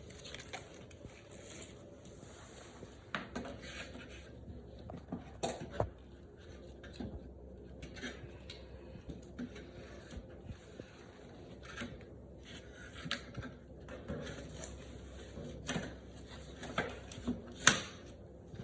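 Handling and wiping a removed AC vent cover to get the dust off. Irregular light clicks, scrapes and rustles, with a few sharper knocks, the loudest one near the end.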